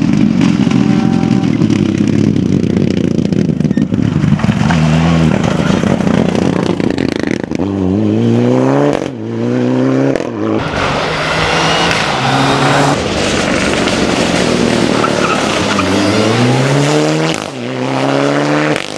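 Mitsubishi Lancer Evolution rally car's turbocharged four-cylinder engine under hard acceleration, its pitch climbing again and again with a short drop at each gear change.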